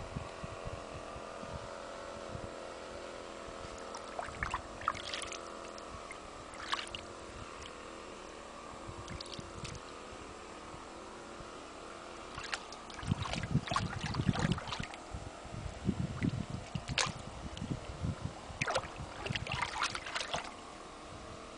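Miniature schnauzer wading in shallow water, its paws splashing and sloshing in short bursts that are busiest about halfway through and again near the end, over a steady hum.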